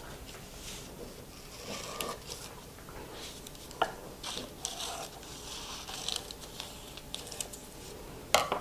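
Parchment paper rustling and crinkling as it is handled and smoothed flat by hand, with a few light clicks.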